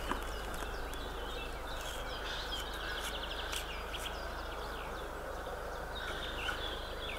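Birds chirping and singing in short calls and trills over a steady outdoor background hiss.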